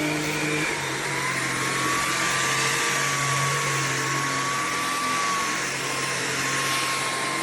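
Tineco A20 cordless stick vacuum running: a steady motor whine over the hiss of the airflow, the whine shifting slightly in pitch about a second in.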